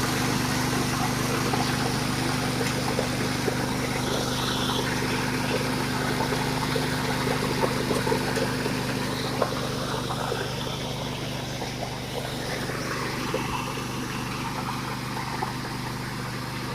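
Engine-driven dry coffee huller running steadily: a constant engine drone under a dense hiss full of small ticks as the dried coffee passes through the machine.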